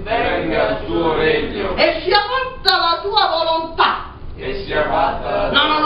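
A person's voice in phrases, with short breaks and a longer pause about four seconds in.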